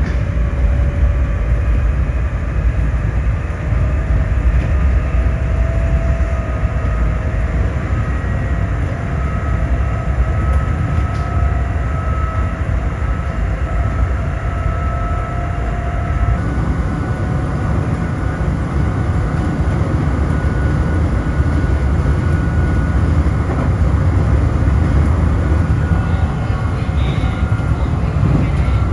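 Nankai 6000-series commuter train running under power up a long gradient, heard from on board near the cab: a steady low rumble of wheels on rail with a faint whine that rises slowly in pitch, changing to a new pitch about halfway through.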